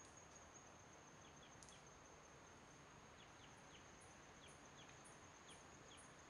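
Faint rainforest ambience: a steady high-pitched insect whine, with short high chirps repeating about twice a second from midway on.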